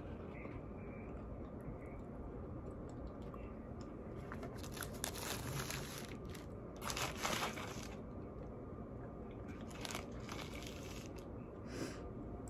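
Close crunching and crinkling as crispy fried chicken and its paper wrapper are handled, in several short bouts, the loudest about seven seconds in, with quiet chewing between.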